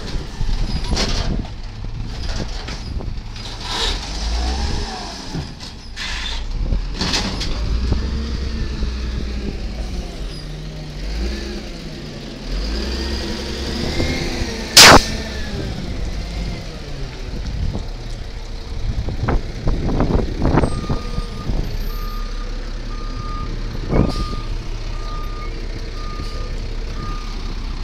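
Volvo side-loader garbage truck running, with metal clanks from its body and one loud sharp bang about fifteen seconds in. From about twenty seconds in its reversing beeper sounds a steady run of evenly spaced beeps.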